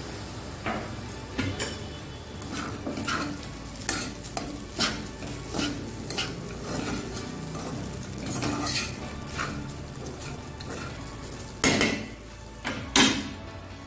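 A spatula stirring and scraping poha (flattened rice) in a stainless steel kadhai, in a string of short strokes over a steady sizzle. Two louder knocks of the spatula on the pan come near the end.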